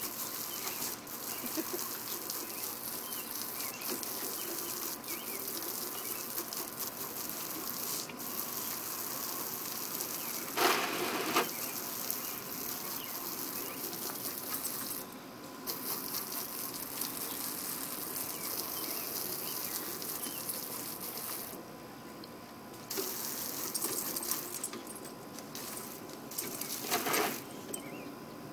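Garden hose pistol-grip spray nozzle hissing as its spray splatters onto a wet wooden deck and into the dogs' mouths, with a couple of short louder splashy bursts. The spray dies down briefly about two-thirds through.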